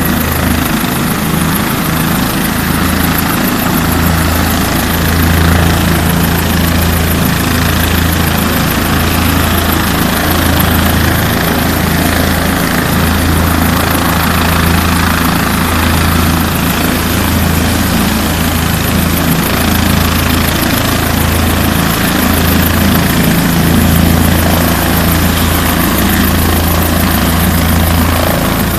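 Bell 407 helicopter's turbine engine and main rotor running steadily on the ground ahead of take-off, a loud continuous deep rotor drone over a broad rush of noise.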